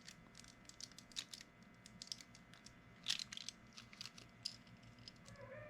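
Faint, irregular clicks and light taps of small hand tools and a plastic fishing lure being handled at a workbench while epoxy is picked up to work into the lure's lip slot. A low steady hum runs underneath.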